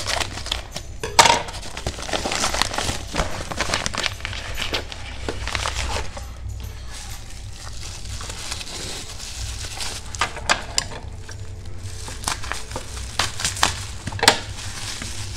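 A padded bubble mailer and bubble wrap being cut with scissors and pulled apart by hand: continuous crinkling and rustling of paper and plastic, broken by many sharp clicks and snips.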